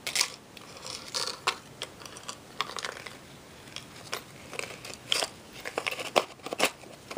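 Handling noise as a metal locket and its chain are laid back into the plastic insert of a small presentation box: irregular clicks, light scrapes and rustles.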